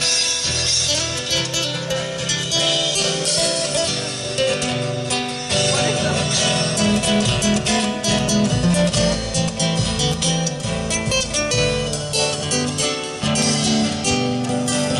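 Instrumental introduction of an Argentine zamba played live: several acoustic guitars strumming and picking, with a bombo legüero drum keeping the beat.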